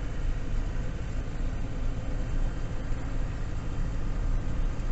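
GAZon Next truck's engine running steadily, a low even rumble with road or cab noise over it.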